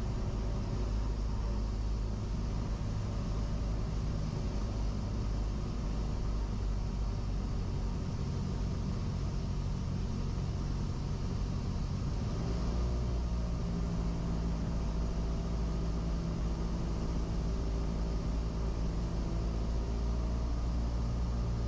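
Cessna 172's piston engine and propeller droning steadily in flight, with a slight change in the engine note about twelve seconds in.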